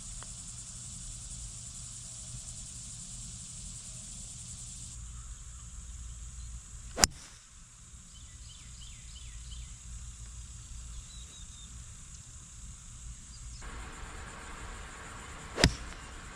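Golf clubs striking a ball: a faint putter tap at the start, a sharp crack of a driver off the tee about seven seconds in, and another sharp crack of an iron shot near the end. A steady insect buzz runs underneath.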